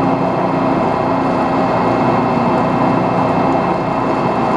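Metal lathe running steadily under load while a cut is taken on a sawmill mandrel's fast collar, with a constant hum and cutting noise.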